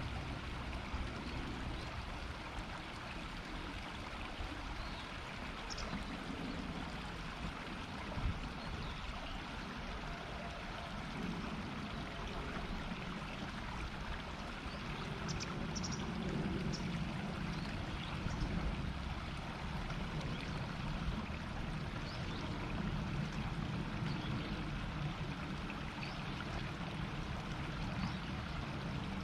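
Shallow river babbling: a steady murmur of running water, with a single brief knock about eight seconds in.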